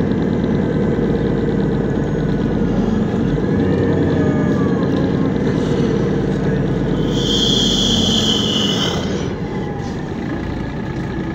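Cabin sound of a MAN NL223 city bus under way: the diesel engine and Voith DIWA three-speed automatic gearbox run steadily, with a whine that rises and falls in pitch a few seconds in. Past the middle, a loud hiss lasts about two seconds, and the drive sound eases a little afterwards.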